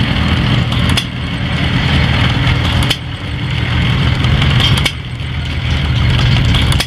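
Scale-model E.H. Myers & Bros. gasoline engine running, with a rapid, steady firing rhythm. Its level drops suddenly about every two seconds and then builds back up.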